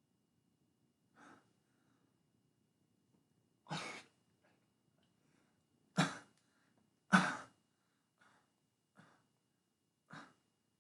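A person coughing: a string of short, separate coughs, the two loudest a little past the middle, with fainter coughs or breaths between them.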